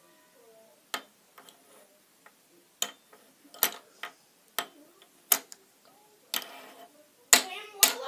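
Toy robot-hand grabber clacking: irregular sharp plastic clicks as its fingers snap shut and knock on the tabletop, louder and closer together near the end.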